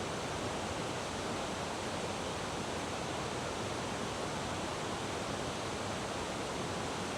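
Steady rushing of river water, an even hiss of flowing cascades without change.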